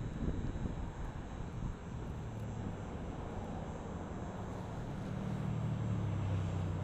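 A distant engine drone, swelling from about two seconds in, loudest near the end and then easing off, over low wind rumble on the microphone.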